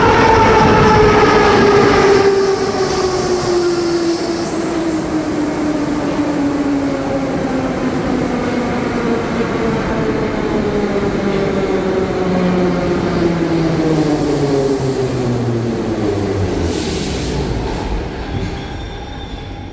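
Ezh3 metro train's traction motors whining as it pulls into a station and brakes, the whine falling steadily in pitch as it slows, over wheel-on-rail rumble. A brief hiss near the end as the train comes to a stop.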